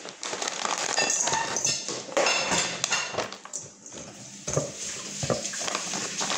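Frozen seafood rattling and clattering out of a plastic bag into a stainless-steel bowl, with the bag crinkling. The knocks and clinks come irregularly.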